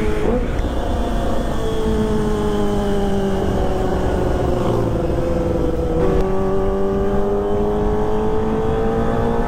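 Kawasaki ZX-25R's inline-four engine running through a ProLiner TR2 full-system racing exhaust while riding. The engine note sinks slowly for a few seconds, then about six seconds in drops sharply and climbs steadily again as it pulls.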